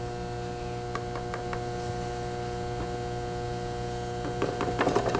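Electric pottery wheel running with a steady motor hum and a few faint ticks. Near the end a quick regular ticking starts, about five a second.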